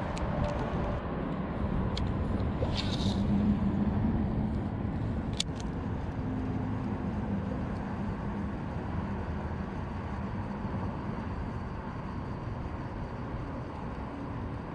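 Steady wind rumble on the microphone over open water, with a couple of small clicks or knocks about three and five seconds in.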